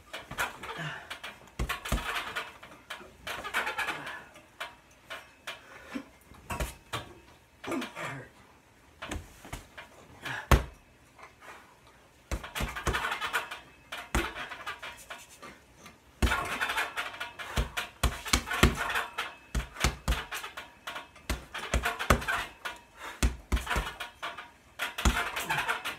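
Punches thudding into a hanging heavy punching bag in irregular flurries, with hard breathing between them.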